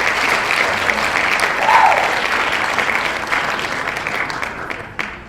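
Applause from a crowd, many hands clapping in a dense patter that starts abruptly and fades away near the end.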